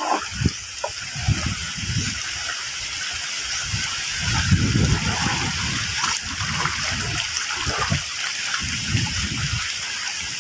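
Small sea waves washing and splashing around shoreline rocks: a steady hiss of moving water with irregular low surges of wash, heaviest about four to five seconds in.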